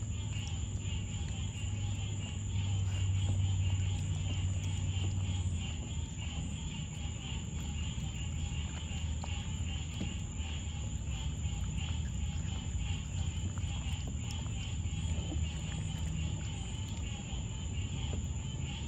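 Night insects (crickets) chirring steadily over a low steady hum, with faint small splashes and clicks as raccoon kits paw and feed in the water of a plastic kiddie pool.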